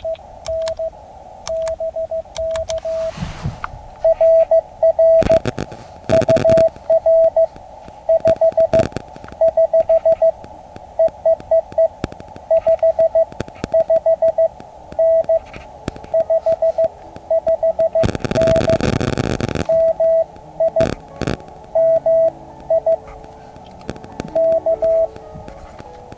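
Morse code (CW) from an Elecraft KX2 ham radio transceiver: a single mid-pitched tone keyed on and off in dots and dashes, heard through a narrow CW filter. The keying is loudest from about four to fourteen seconds in, and three short bursts of noise break in, one of them over a second long near eighteen seconds.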